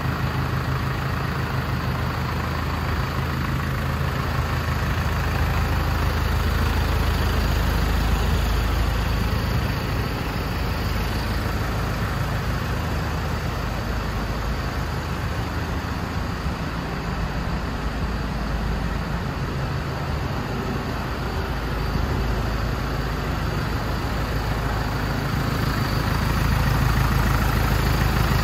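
The truck's MAN 155 bhp turbocharged, charge-cooled diesel engine idling steadily, with a low, even running note.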